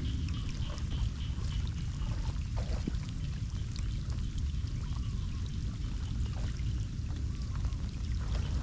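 Rain falling on a flooded road and floodwater running, with many small drop clicks over a steady low rumble.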